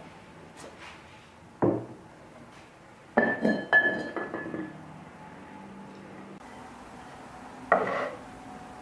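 Crockery and wood handled on a wooden table: a dull thump, then two sharp ringing clinks of a stoneware crock lid against the crock. Near the end comes a wooden knock as the rolling pin and lid are laid down.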